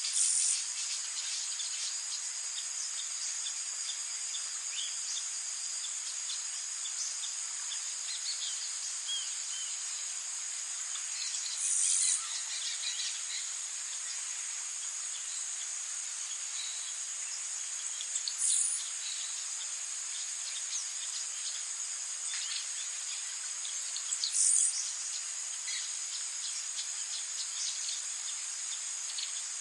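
Forest ambience: a steady, high-pitched chorus of insects such as crickets, with scattered short bird chirps and calls over it. Four brief, louder rasping bursts stand out: at the start, about 12 seconds in, about 18 seconds in, and about 24 seconds in.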